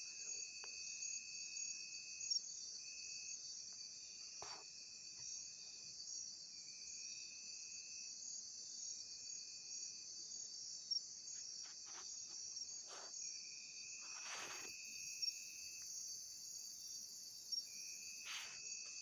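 Night insect chorus: a dense, steady, high-pitched trilling, with a second, lower trill that starts and stops every second or two. A few short faint clicks are heard over it.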